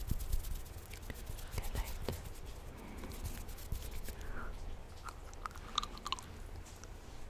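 Close-miked ASMR mouth sounds: scattered wet clicks and smacks from lips and tongue, as in pretend biting or nibbling.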